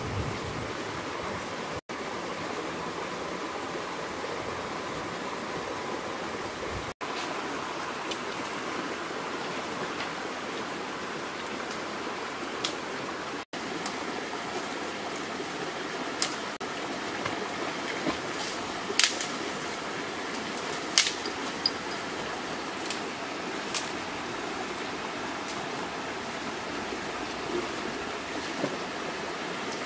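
Shallow river flowing over rocks: a steady rushing of water, with a few sharp clicks from about halfway through. The sound cuts out for an instant three times.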